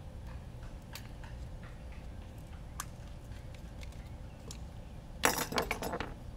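Small clear plastic packaging and drone-motor parts being handled on a workbench mat: a few light clicks, then about a second of quick crackling clicks near the end, the loudest part.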